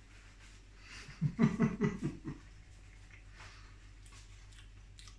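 A man with a mouthful of food makes a quick run of about six short, muffled 'mm' sounds of enjoyment about a second in. Otherwise only a low steady hum.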